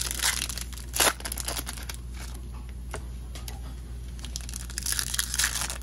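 Trading-card packaging from a Topps 2020 Series 2 blaster box being torn open and handled: scattered crinkles and rips, busiest about a second in and again near the end, over a low room hum.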